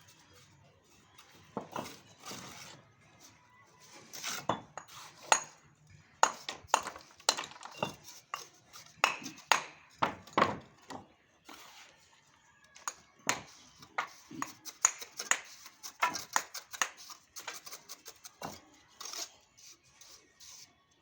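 Mason's steel trowel clinking and scraping against bricks and mortar in irregular flurries of sharp metallic taps, some ringing briefly.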